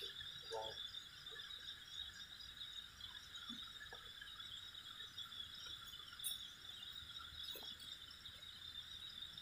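Night insects, crickets among them, trilling in a steady high-pitched chorus, with a couple of faint short clicks about two thirds of the way in.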